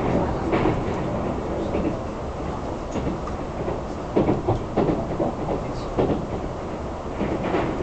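Keisei Skyliner express train running at speed, heard from inside the passenger cabin: a steady rumble of wheels on rail, with a quick series of knocks about four to six seconds in.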